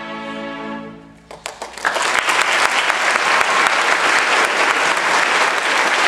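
A string orchestra's final chord, held and sustained, fades out about a second in. A few scattered claps follow, then the audience breaks into full, steady applause.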